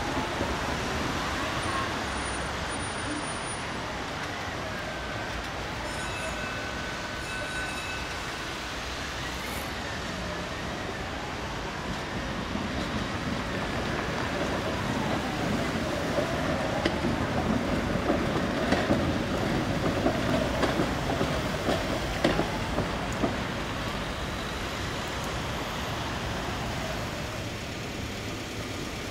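V3A-93 articulated tram rolling slowly through a tight curve and over the junction's track, wheels rumbling. A short steady squeal comes about six seconds in, and a run of clattering knocks from the wheels over rail joints and switches sets in past the middle. A faint wail rises and falls over and over in the background.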